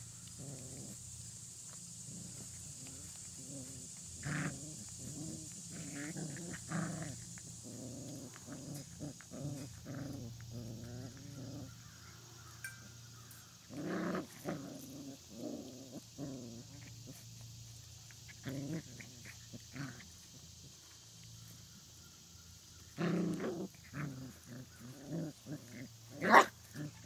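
Old Time Scotch Collie puppies play-fighting, giving short bursts of small growls in several bouts. A sudden loud sharp sound comes near the end.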